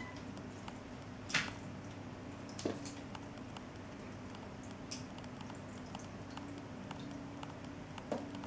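Quiet room with a steady low hum and scattered faint ticks and taps. A sharper click comes about a second and a half in, and two softer ones follow later.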